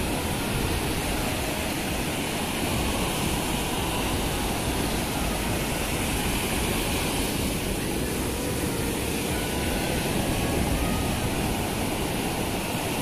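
Steady noise of ocean surf, waves breaking on a sandy beach.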